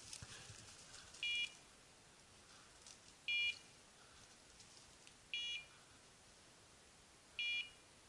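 Hunting dog's beeper collar sounding four short electronic beeps, evenly about two seconds apart: the steady repeating beep of point mode, the signal that the dog is standing still on point.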